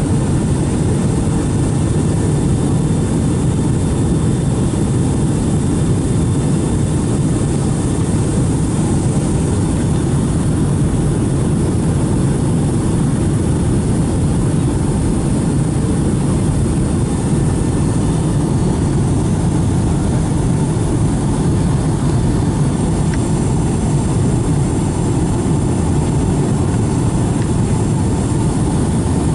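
Steady cabin noise of a Boeing 757-200 airliner: a constant low rumble of engines and rushing air heard from inside the cabin, with no change in level.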